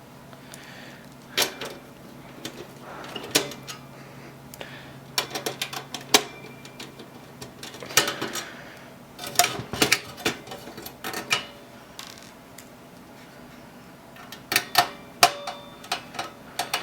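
Irregular clicks, taps and light knocks of hands handling small computer parts and their packaging, over a faint steady low hum.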